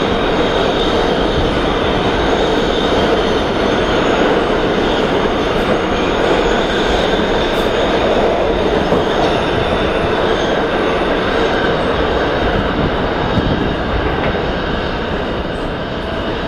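New York City Subway R211T train running through the station at speed without stopping, a loud steady noise of wheels on rails. It eases slightly near the end as the last cars clear the platform.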